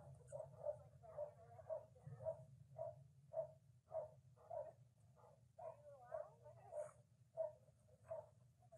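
A dog barking over and over, faint, about two short barks a second.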